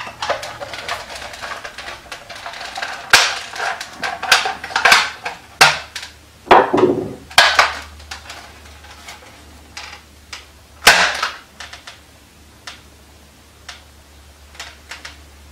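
Sharp plastic clacks and clicks of a Nerf Retaliator blaster fitted with a Worker short dart kit being worked by hand: about a dozen irregular snaps, the loudest about three seconds in and about eleven seconds in, then only faint ticks.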